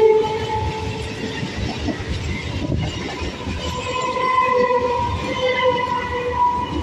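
Chennai suburban electric multiple-unit local train passing close by, its wheels rumbling and clattering over the rails. A steady pitched whine sounds over the rumble, fading about a second in and returning from about four to six and a half seconds in.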